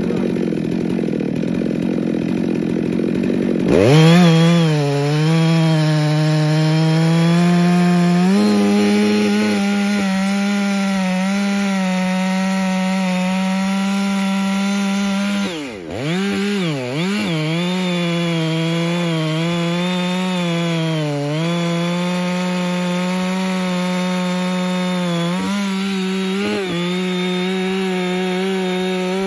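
FarmMac F660 two-stroke chainsaw, a Stihl 660 clone, idling, then revved to full throttle about four seconds in and cutting through a large log. The engine note holds steady under load, wavering slightly, and dips sharply twice around the middle before climbing back.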